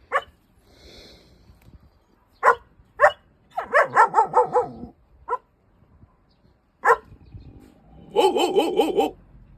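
Dog barking: single sharp barks spaced a second or two apart, with a quick run of barks around four seconds in and another near the end.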